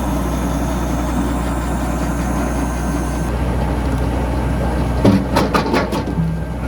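Massey tractor engine running steadily at a low hum, with a short run of sharp clattering knocks about five seconds in.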